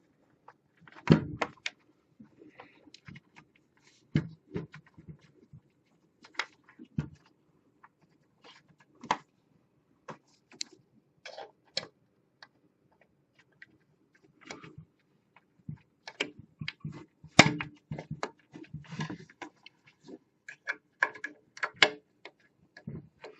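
Irregular clicks, taps and knocks of hands and a small screwdriver working the plastic printer housing and its power switch, over a faint steady hum.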